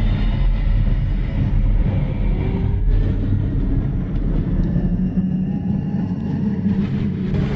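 A low, steady rumbling drone, a horror sound effect, with faint held tones above the rumble.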